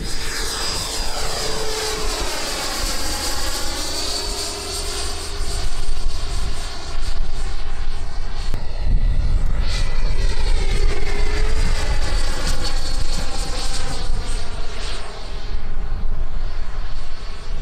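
Electric RC model airplane flying by, its motor and propeller whining steadily. The sound sweeps past twice, the pitch dipping and returning with each pass.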